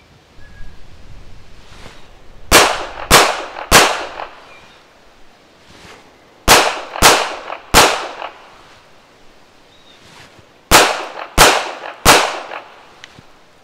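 Girsan Mete SF 9mm pistol fired in three failure drills: three groups of three shots a few seconds apart, each group two quick shots followed by a slightly slower third shot.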